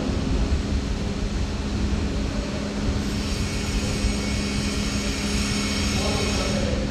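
Steady machine hum with a low rumble underneath, joined by a high hiss from about halfway through until near the end.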